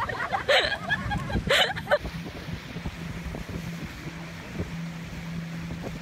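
A boat's motor humming steadily under wind noise on the microphone, starting about two seconds in after a couple of short voice cries.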